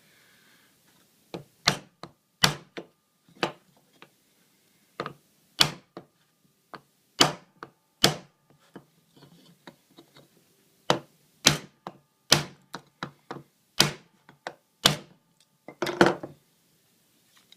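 Hammer blows on a wood block laid against a door hinge, bending its leaves to close up the hinge gap: about twenty sharp knocks at an uneven pace, one or two a second, with short pauses between groups.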